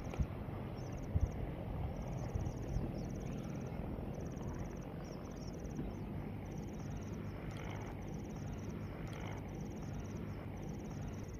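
Insects chirping in high, rapid pulsed trills that repeat every second or so with short pauses, over a steady low rumble.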